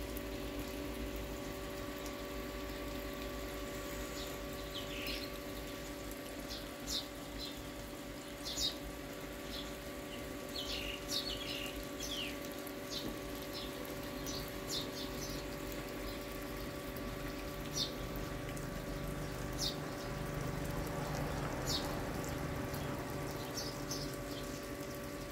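Water running under a steady hum, with small birds chirping now and then. The water is kept on a freshly poured concrete slab to hold it flooded while it cures.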